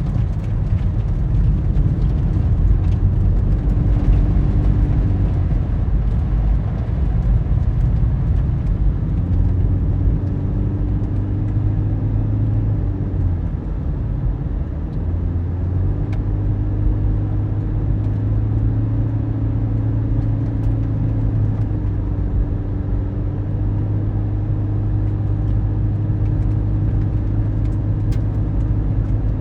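Car driving, heard from inside: a steady low road rumble with the engine's hum, which shifts in pitch a few times as the speed changes.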